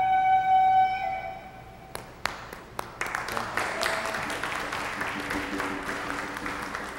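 A held musical note fades out, then a few separate claps about two seconds in swell into steady applause from a group of people.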